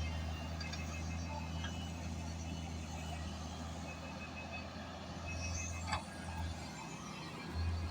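Diesel engine of heavy earthmoving machinery running steadily with a low drone, and a sharp knock about six seconds in.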